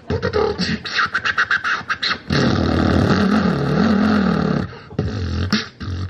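A man beatboxing into a hand-held microphone over a PA: a quick run of clicking drum sounds, then a long buzzing hum that wavers up and down in pitch for about two seconds, then more clicks near the end.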